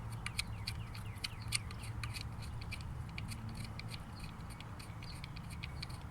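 Light, irregular metallic clicks and scrapes as the last ignition-coil hold-down bolt is unscrewed by hand from an engine's coil cover area, over a steady low hum.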